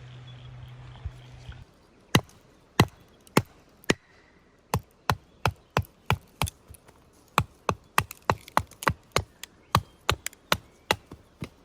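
Wood being chopped: a run of sharp single strikes, spaced out at first and quickening to about three a second after the midpoint. A harmonica tune stops just before the first strike.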